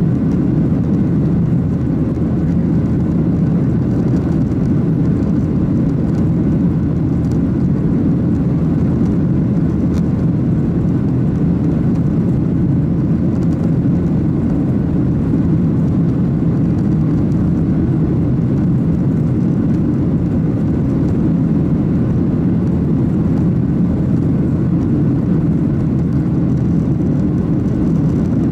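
Cabin noise of a Boeing 737-800 in flight, heard from a window seat over the wing: the CFM56-7B turbofans and the rushing air make a steady low rumble that stays even throughout.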